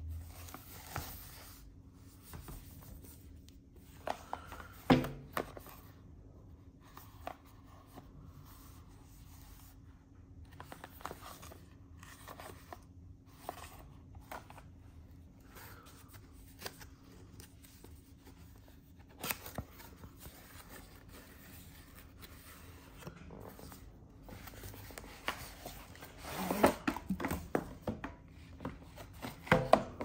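Cardboard product boxes handled with rubber-gloved hands: scattered rustling, sliding and scraping, with a few sharper knocks as boxes are set down, loudest about five seconds in and near the end. A faint steady hum runs underneath.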